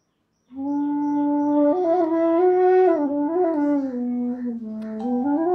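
Punam Flutes bass bansuri in D, a bamboo flute, played solo in its low register. It starts about half a second in, holds a low note, then moves slowly through neighbouring notes with slides and ornaments, sinking to its lowest note and rising again at the end. The breath sound is audible.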